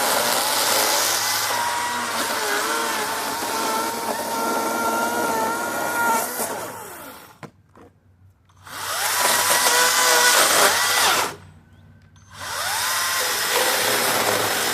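Greenworks 60V battery-powered 16-inch chainsaw running with a high electric whine and chain hiss, its pitch dipping and wavering. It winds down and stops about halfway through, runs again for a few seconds, stops briefly once more, then starts up again near the end.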